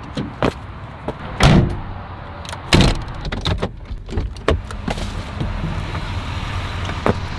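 Chevrolet pickup truck's door being opened from inside: a run of handle and latch clicks, then the door swinging open. Two heavy thumps come earlier, about one and a half and three seconds in, and they are the loudest sounds.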